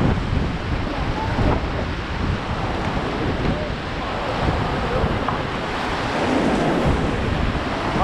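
Rushing white water of a small rapid on the Ganges, with wind buffeting the microphone.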